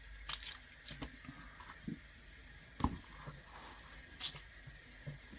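Small plastic packaging being handled and pulled apart: scattered light crinkles and clicks, with one sharper knock just under three seconds in.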